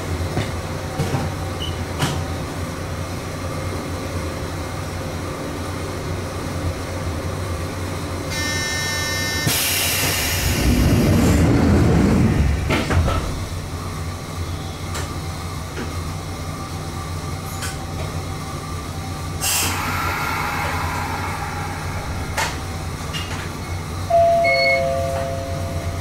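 Toyama Chiho Railway 14760-series electric train standing at a station, its equipment giving a steady low hum. About ten seconds in, a louder rush of noise swells and fades for a few seconds. A short hiss follows near twenty seconds, then a two-note chime, high then lower, near the end.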